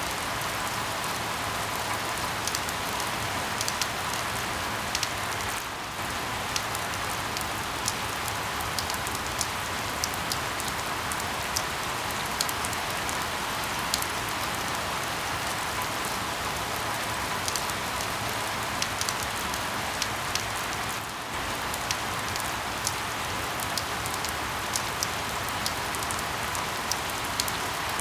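Steady rain falling, with many individual drops landing as sharp ticks over the even hiss. The sound dips briefly twice.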